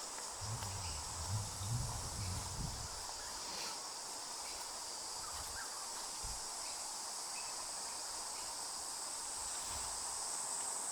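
Steady high-pitched chorus of insects chirring in bushland, growing a little louder toward the end, with faint low rumbling in the first few seconds.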